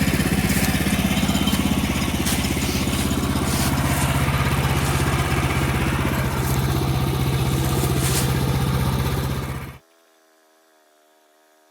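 Woodland Mills HM-126 portable sawmill's gasoline engine running steadily. The sound cuts off abruptly near the end, leaving only a faint hum.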